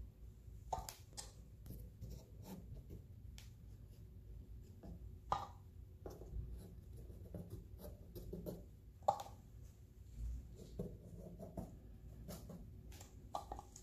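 Faint scraping and rubbing with a few light clicks and taps scattered through it.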